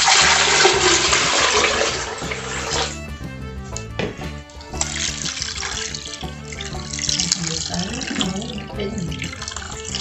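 Liquid cassava pulp from the blender rushing and splashing into a cloth strainer for about the first three seconds. Then the cloth bag is squeezed, with starchy liquid trickling and splashing into a plastic bowl. Background music plays throughout.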